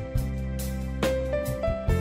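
Instrumental background music: held notes that change step by step over a steady bass, with light regular beats.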